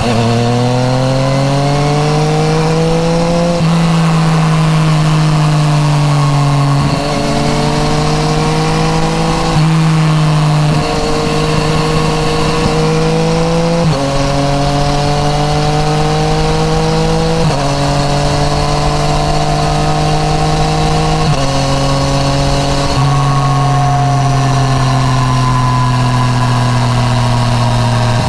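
Yamaha MT-09 Tracer's three-cylinder engine running through an Akrapovič titanium full exhaust under way. Its pitch climbs and eases with the throttle and jumps abruptly every few seconds as gears change.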